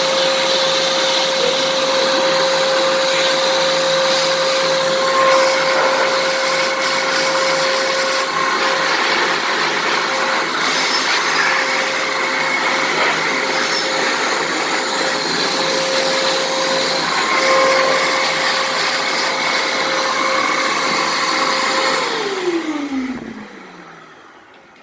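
1600 W wet & dry vacuum cleaner motor running steadily while it is used to clean its own filter. Near the end it is switched off and its whine falls in pitch as the motor spins down.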